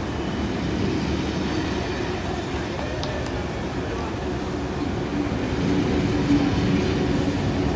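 Old passenger carriages of a departing train rolling past, wheels running on the rails with a steady rumble and a sharp click about three seconds in. The sound grows slightly louder in the second half as the train gathers speed.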